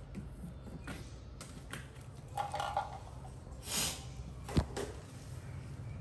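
Light taps and knocks on a box, with a short rustle just before four seconds in and a sharp tap about half a second later, over a low steady hum.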